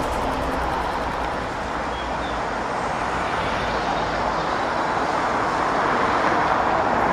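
Steady road traffic noise, a continuous rush of passing vehicles, swelling slightly near the end.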